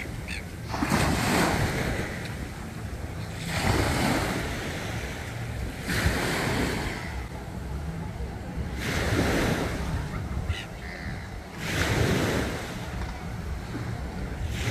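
Small waves breaking and washing up on a sandy harbour beach, one wash every two to three seconds.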